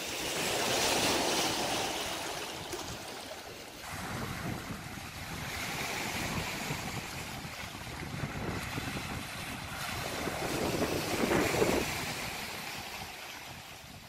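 Sea surf breaking and washing over rocks and shingle, swelling and falling back, with a louder wash about a second in and another near the end.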